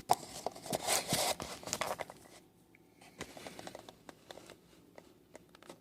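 Handling noise: scraping and rustling with sharp clicks as objects are moved and set down on a hard surface. It is busiest for about the first two seconds, then thins to a few faint clicks and rustles.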